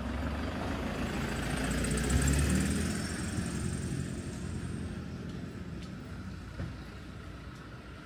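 A motor vehicle passing close by: its engine and road noise swell to a peak about two seconds in, then fade away.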